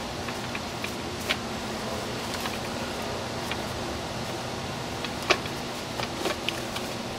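A 26-inch bicycle tyre's bead being pushed back over the rim by gloved hands: scattered light clicks and rubbing of rubber on the rim, with a couple of sharper snaps, over a steady background hum.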